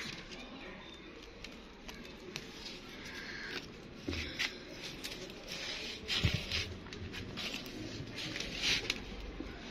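A hungry pet hamster screaming in short, scratchy bursts, spaced irregularly with pauses between them.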